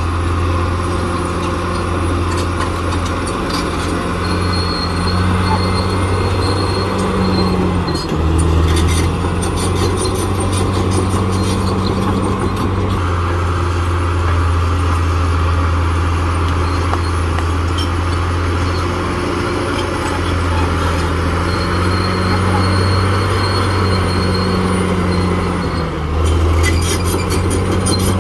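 Caterpillar D6R XL crawler dozer's diesel engine running steadily under load, its low drone shifting in pitch as it works. Spells of metallic clattering come about eight seconds in and again near the end.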